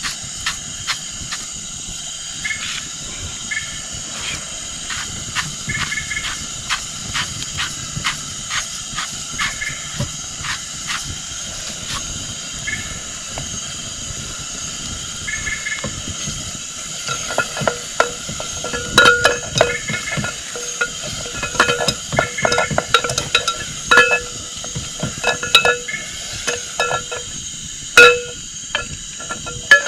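Seasoning frying in oil in a pan over a campfire: a steady sizzle with many small crackling pops. From a bit over halfway in, louder clicks and knocks join in.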